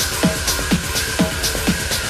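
Techno track from a club DJ set: a steady dance beat of falling-pitched drum hits about twice a second, with crisp hi-hats and a sustained synth tone.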